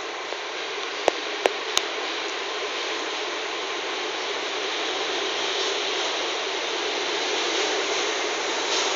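Madrid Metro 9000-series train running into an underground station platform: a steady rushing of motors and wheels that slowly grows louder as the cars pass, with three sharp clicks a little over a second in.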